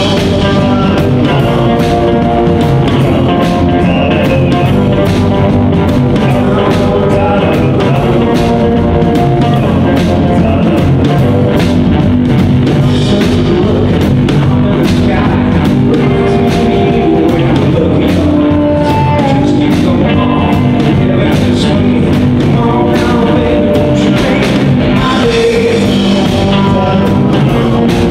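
Live blues-rock band playing loud: electric guitars, a drum kit and harmonica, with a singer's voice over the top.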